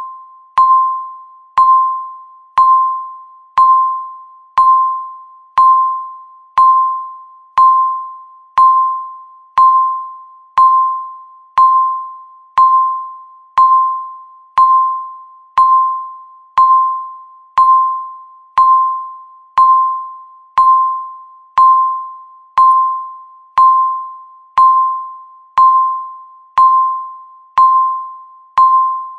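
Countdown timer's electronic beep sounding once every second: a single clear tone that starts sharply and fades away before the next, marking each second left in the countdown.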